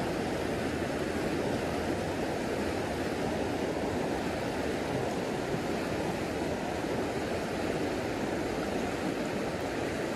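Creek water rushing steadily over rocks in a shallow riffle.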